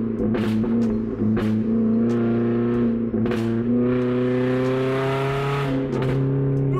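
Toyota Corolla's four-cylinder engine running through an exhaust with the muffler removed, loud and droning inside the cabin. Its pitch climbs steadily under acceleration about four seconds in, then drops back near the end.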